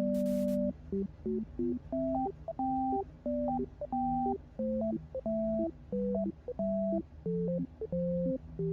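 Background music: a simple electronic tune of clean, beeping notes stepping up and down over a lower bass line.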